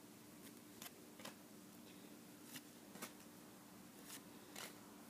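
Faint flicks of trading cards being thumbed through one at a time, a soft click every half second or so at an uneven pace, over a faint steady hum.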